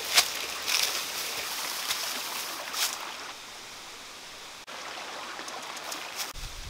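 Steady rushing of a small stream, with a few crackling footsteps on dry leaves in the first three seconds. A low rumble comes in near the end.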